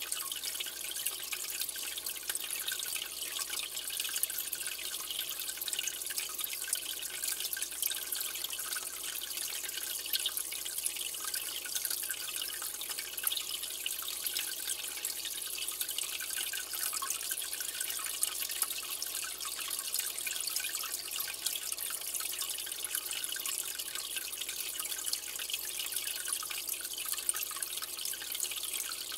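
Aquarium water trickling and dripping steadily: a constant hiss with a fine patter of tiny drips.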